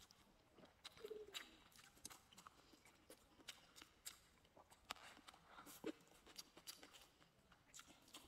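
Near silence with faint close-up chewing: scattered soft clicks and smacks from a mouth working on food.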